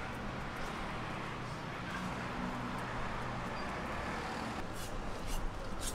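Steady street traffic noise with a low engine hum, and a few light clicks near the end.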